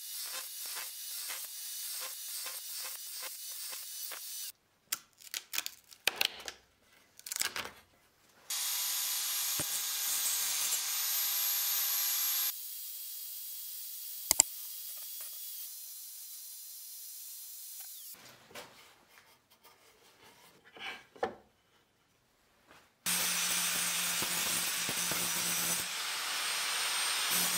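Workshop power tools: a Metabo sliding mitre saw runs for several seconds as it cuts pine, and in the last few seconds an angle grinder starts and runs steadily. Before the saw there is a run of quick rhythmic scrapes and scattered knocks of handling.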